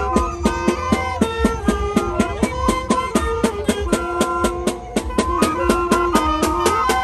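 Moseñada folk music: a troupe of moseño flutes playing a melody in parallel voices over rapid, even drum strokes.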